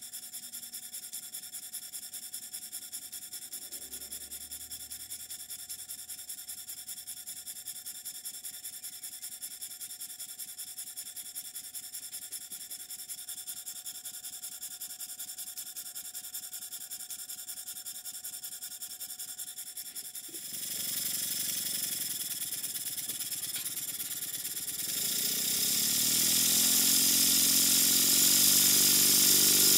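Stuart 10V model steam engine running steadily on compressed air, with fast, even exhaust beats and a hiss. About 20 seconds in, a louder mechanical sound takes over, and it grows louder again with a pitched hum about 25 seconds in.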